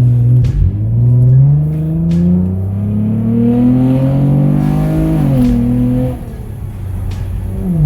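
A Dodge Journey's 3.6 V6 under hard acceleration, its pitch climbing through the gears. It drops at an upshift about half a second in, climbs again to a second shift near 5 s, eases off around 6 s, and picks up again near the end. This is the quick throttle response given by a pedal-box throttle controller.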